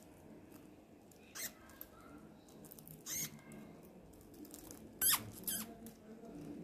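Young white rats squeaking, about four short sharp squeaks with the loudest about five seconds in, as they jostle over a biscuit.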